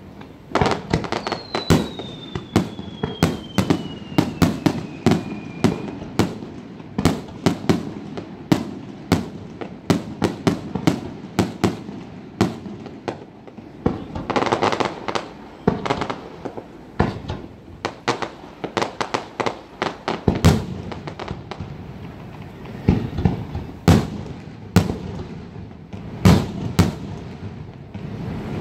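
Fireworks display: aerial shells bursting one after another, many sharp bangs with booming echoes. A falling whistle runs for several seconds near the start, and about halfway through there is a thicker stretch of crackling.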